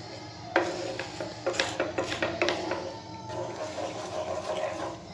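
Wooden spatula stirring thick caramelized sugar syrup in a pan, scraping across the bottom, with a few sharp knocks against the pan in the first half.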